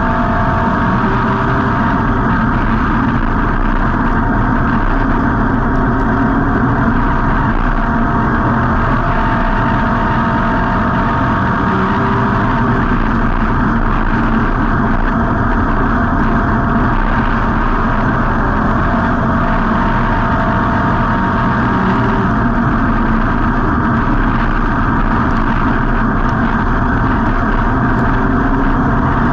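A WISSOTA street stock race car's V8 engine running steadily at an even pitch, heard on board inside the car.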